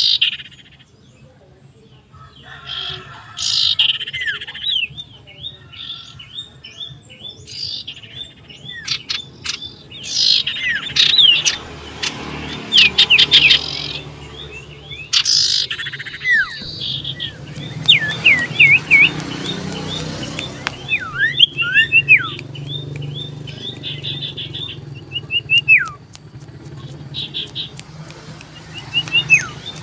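Common iora calling loudly and persistently: rapid bouts of sharp chirps and quick downward-sliding whistles, the keyed-up 'gacor' calling of a bird answering a rival nearby, with scattered clicks in between.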